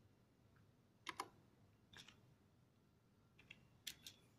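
Faint clicks of keys pressed one at a time on the keypad of a Micro-8086 microprocessor trainer kit, about half a dozen presses with short, uneven pauses between them, as the unassemble command is keyed in.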